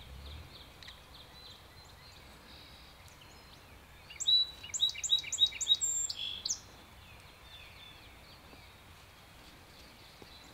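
A bird calls a quick run of about eight high, downslurred notes near the middle, standing out clearly over faint outdoor ambience.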